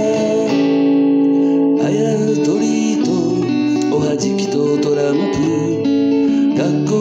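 Acoustic guitar playing an instrumental passage, with chords and notes changing every second or two.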